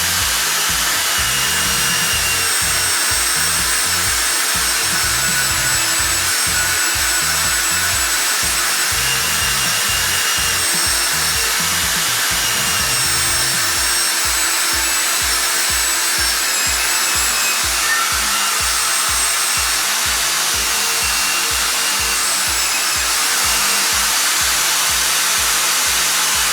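Background music with a steady beat over a constant hiss.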